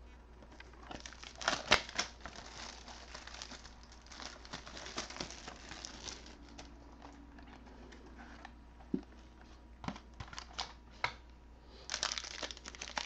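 Hands opening a trading-card box and pulling out a foil-wrapped card pack. It is a crinkling and rustling of wrapper and cardboard with scattered sharp clicks, densest near the end as the pack comes out.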